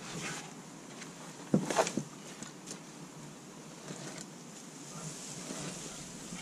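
A heavy sawn log chopping block being shifted by hand on the ground: a few short knocks and scuffs about one and a half seconds in, then faint ticks over quiet background.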